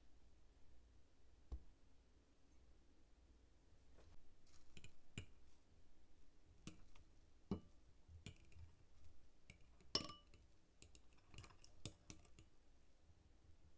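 Faint clicks and clinks of a metal fork against a ceramic bowl as a potato croquette is turned in beaten egg, the sharpest clink, with a short ring, about ten seconds in.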